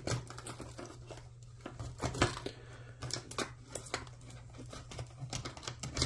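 Irregular light clicks and rustles of small objects being handled, over a steady low hum.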